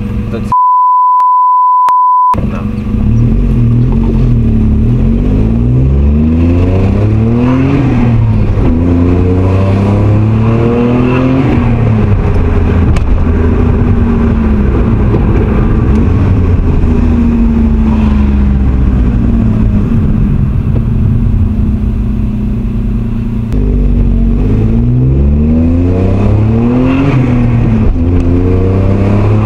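Kei car engine with a cheap aftermarket rear-section muffler, heard from inside the cabin as the car accelerates through the gears. The engine pitch climbs in each gear and drops at each shift, then settles into steadier cruising, and a second run up through the gears starts near the end. Early on a steady electronic beep tone lasts about two seconds, with all other sound cut out beneath it.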